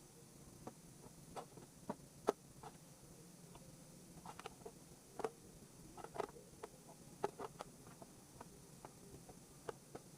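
Scattered light clicks and knocks at irregular intervals from kitchen work, utensils and containers being handled, over a low steady hum.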